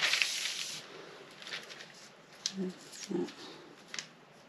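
Paper pattern rustling as it is handled, fading out about a second in, followed by a few faint clicks and taps.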